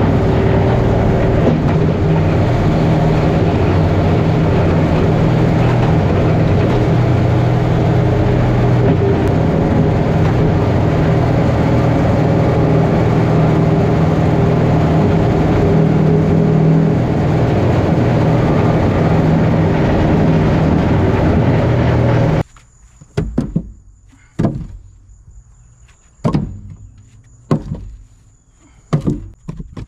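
An engine running steadily at an unchanging speed for about twenty seconds, then cutting off abruptly, followed by a series of sharp knocks.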